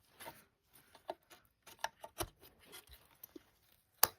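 Handling of RAM sticks and their plastic packaging: scattered light clicks and rustles, with one sharp click about four seconds in.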